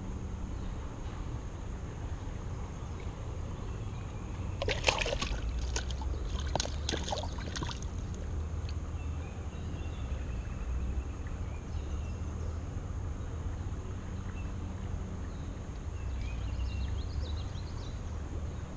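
Steady low wind rumble on an outdoor creek bank, with a short run of sharp clicks, rattles and small splashes about five to eight seconds in. Faint bird chirps come twice later on.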